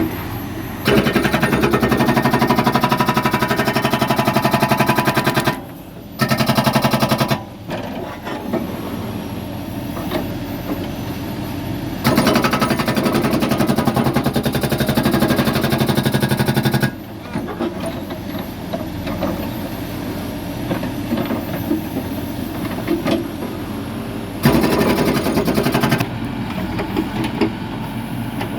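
Hsuntay ST69C hydraulic breaker on a CAT 416F2 backhoe loader hammering in four bursts of rapid, evenly spaced blows, the longest about five seconds. The backhoe's diesel engine runs between the bursts.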